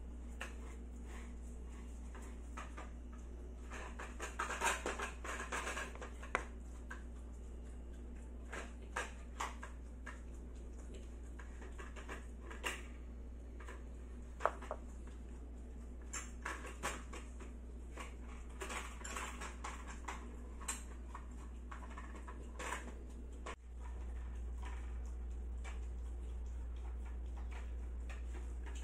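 Scattered light clicks and taps of dishes and utensils being handled, coming in small clusters, over a steady low hum that is louder after a brief dip near the end.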